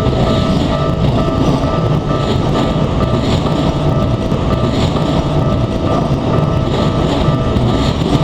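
Electric commuter train running past on the Keikyu line, a continuous loud wheel-and-rail rumble, while the level crossing's warning bell rings steadily in a fast repeating rhythm.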